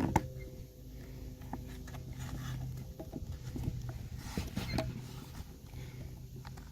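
Scattered clicks and rustling as a tourniquet belt's strap and windlass handle are twisted and worked into the retainer clips, with a sharp click just after the start, over a steady low hum.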